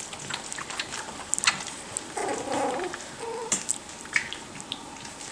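Five-week-old puppies play-wrestling: small scuffling and mouthing clicks throughout, with a short puppy call a little after two seconds in and a briefer one about a second later.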